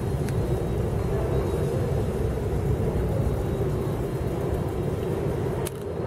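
Steady low rumble with a constant mid-pitched hum in an underground light-rail subway station, with a short click near the end.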